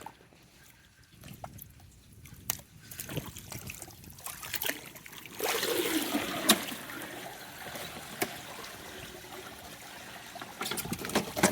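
Water streaming and trickling off a robotic pool cleaner as it is lifted out of the pool. The rush of water gets louder about halfway through, with a few sharp knocks.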